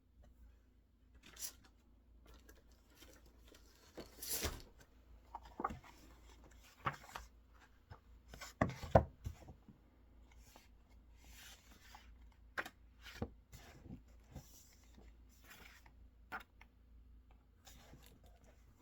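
Faint, irregular desk-work sounds: scattered taps and short rustles and scratches, like pen and paper being handled, with a louder rustle about four seconds in and another about nine seconds in.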